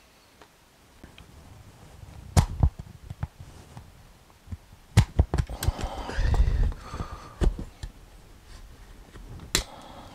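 Hard plastic battery-charger case being handled: several sharp knocks and clatters of plastic on plastic, with a squeaky scraping rattle in the middle as parts are worked against the freshly cut opening.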